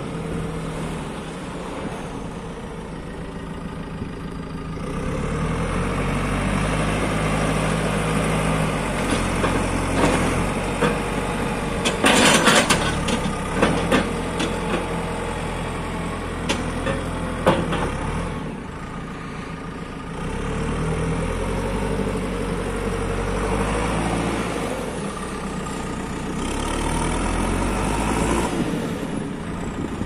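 A JCB 3CX Super backhoe loader's four-cylinder diesel engine running as the machine is driven and worked, its engine speed rising and falling. There is a loud clattering burst about twelve seconds in, and a few sharp knocks.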